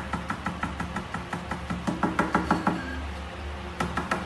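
Fingertips tapping rapidly on a glass tabletop, about five or six light taps a second with a faint glassy ring. The taps get louder around two seconds in, stop, then come again in a short quick run near the end.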